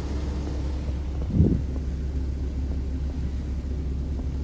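Automatic car wash machinery heard from inside the car's cabin: a steady low rumble, with one brief thud about a second and a half in.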